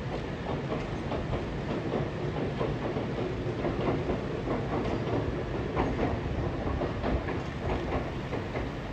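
Konan Railway Owani Line two-car electric train heard from afar crossing a steel girder bridge: a steady rumble with the wheels clicking irregularly over the rail joints.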